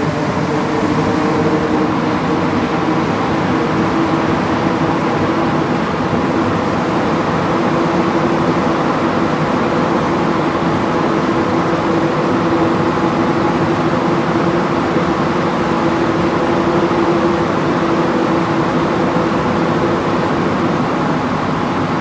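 Montréal Métro AZUR (MPM-10) rubber-tyred train running steadily through a tunnel, heard from inside the car: an even rumble and rush of tyres and air with a faint steady hum from the motors.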